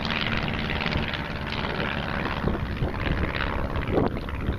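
Small single-engine propeller plane flying low past, its engine and propeller running steadily.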